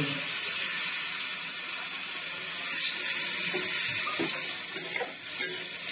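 A little water poured into a hot kadai of frying spice paste, hissing and sizzling steadily as it hits the oil and turns to steam. A few spatula scrapes in the second half.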